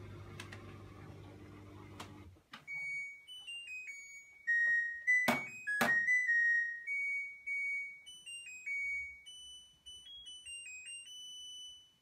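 LG F14U1JBS2 front-loading washing machine at the end of its cycle. A low motor hum stops about two seconds in, then the machine plays its electronic end-of-cycle tune, a melody of high beeps, broken by two sharp clicks about five seconds in.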